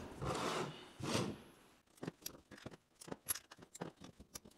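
Hard 3D-printed plastic organizer rubbing and scraping as it slides on the table, twice in the first second and a half. Then a run of small sharp clicks, irregularly spaced, as steel bar magnets clack together and against the plastic while the last magnets are pushed into the organizer's slot.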